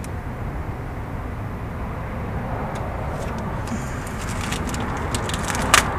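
Crinkling and crackling of small plastic packaging as a thermostat gasket bag is handled and opened. The sharp crackles start about halfway in, with one louder snap near the end, over a steady low rumble.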